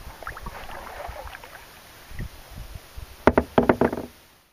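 Sea kayak handled at the dock pilings: low bumps and knocks of paddle and hull with faint water sounds, then a quick run of sharp, loud knocks a little after three seconds in.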